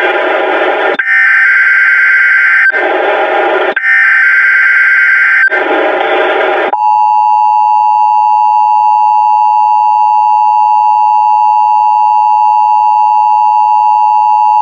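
Mock Emergency Alert System alert: several loud, harsh digital data bursts with short gaps between them (SAME header-style tones), then, about seven seconds in, the steady two-tone EAS attention signal, held unbroken.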